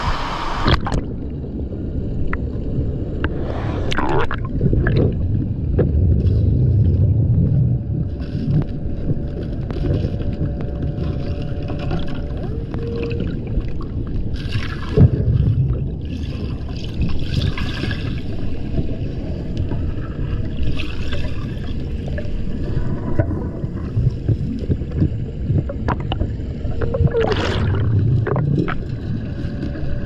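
Moving water heard underwater below a waterfall: a steady muffled rumble, with three brief louder bursts spread through.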